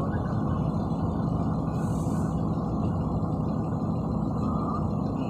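Scania P360XT dump truck's diesel engine held at about 900 rpm, driving the PTO hydraulic pump that extends the tipper cylinder to raise the dump body, heard from inside the cab as a steady drone. A short faint hiss comes about two seconds in.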